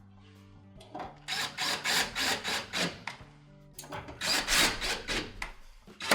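Screws being driven back into a microwave's sheet-metal side panel: two runs of quick, rasping strokes. Background music plays throughout.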